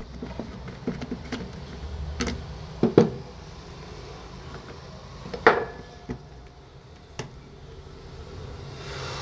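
Scattered clicks and knocks of an opened Bosch impact drill's internal parts being handled and taken apart, with the loudest, a double knock, about three seconds in and another sharp knock about five and a half seconds in.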